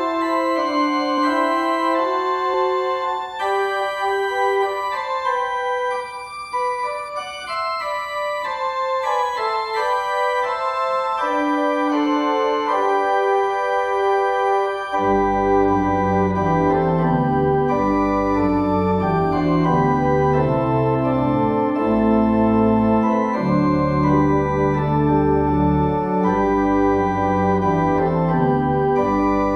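Organ music: slow sustained chords in the upper range, with deep bass notes joining about halfway through.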